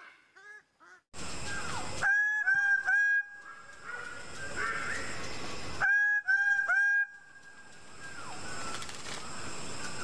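Greater bird-of-paradise giving loud, nasal honking display calls in runs of three, about two seconds in and again near six seconds, over a steady background hiss.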